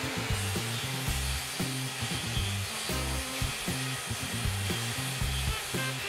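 Table saw running steadily as a pine board is fed over the blade, cutting a groove. Background music with a stepping bass line plays underneath.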